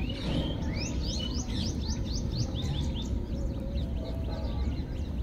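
Small birds chirping in the background: a run of quick, high chirps, two or three a second, thinning out after about three seconds, over a steady low rumble.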